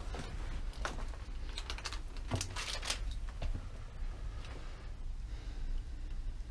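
Irregular clicks, crunches and scrapes of someone scrambling on foot over stone and grit in a low, narrow tunnel, the busiest cluster a little over two seconds in, over a steady low rumble.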